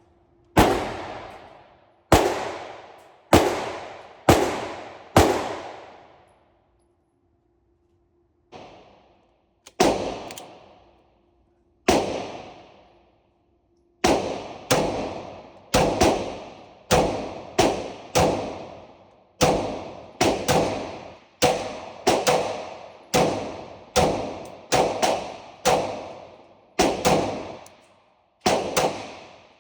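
Pistol shots at an indoor range, each a sharp crack with a short echoing tail. Single shots with pauses come first, then from about halfway a steady string of shots, roughly one a second or faster.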